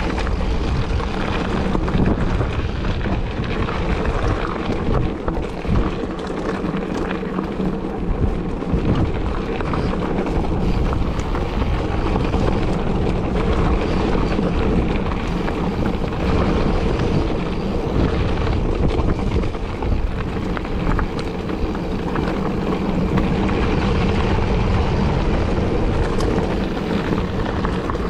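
Steady wind buffeting the microphone of a moving mountain bike, with a low rumble from the bike rolling over rough dirt trail.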